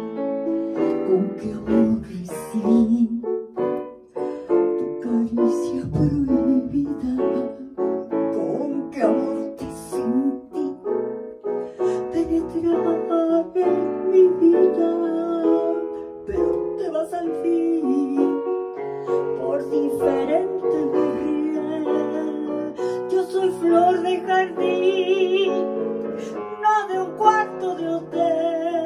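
Digital piano playing a slow blues instrumental break: chords and melodic runs.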